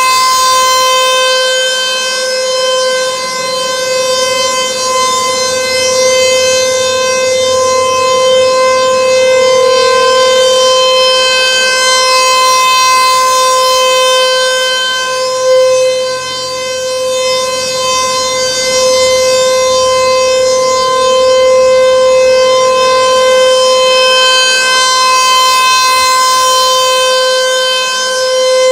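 American Signal Corporation T-128 rotating mechanical siren sounding at full speed during its test, holding one steady tone. Its loudness swells and fades a little as the siren head turns.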